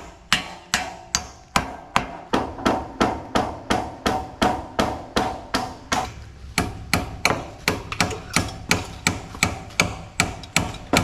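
A 14-ounce Stiletto hammer driving nails into framing lumber by hand: a long, steady run of blows at about three to four a second.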